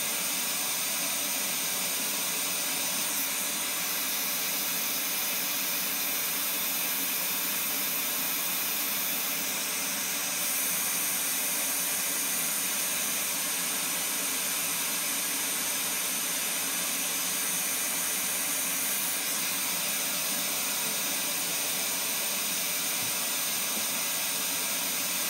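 Steady broadband test noise played through a loudspeaker: an even, unbroken hiss, strongest in the highest range.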